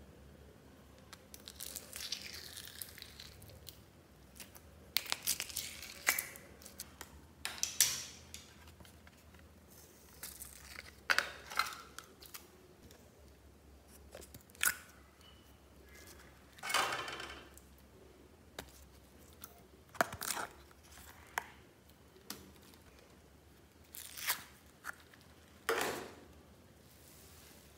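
Slime being peeled, pulled and squished out of plastic tubs and dropped into a tub of mixed slime, with the thin plastic containers crinkling as they are handled. It comes as about a dozen short, irregular bursts of rustling and tearing.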